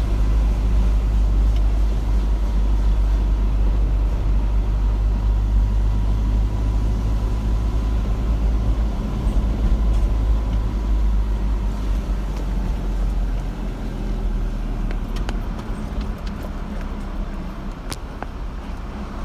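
Car driving along a road: a steady low rumble of engine and road noise that eases a little in the last few seconds, with a faint steady tone for the first dozen seconds and a few light clicks near the end.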